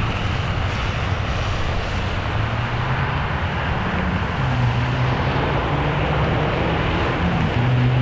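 Jet airliner engines making a loud, steady rushing noise. A low droning hum comes in about halfway through.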